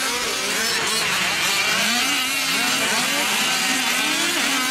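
Several 1/5-scale RC off-road trucks' small two-stroke gasoline engines racing, revving up and down over one another, their pitches rising and falling constantly.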